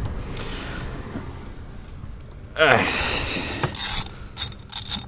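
Hand tools being worked on an engine: a low rumble, then a rattle about halfway through, followed by a run of sharp mechanical clicks.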